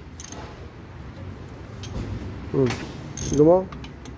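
A few sharp metallic clicks and knocks from a tool on a Nissan Sunny engine as someone tries to turn it over by hand; the engine is said to be seized.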